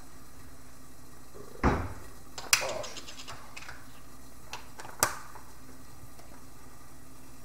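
A dull thump, then a quick run of sharp clicks and rattles lasting about a second, and one more sharp knock a little later: household objects being handled and set down.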